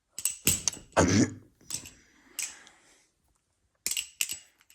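Armed Shark Glidr OG balisong trainer being flipped, its handles clacking in clusters of sharp clicks near the start and again near the end. A few short breathy sounds come between.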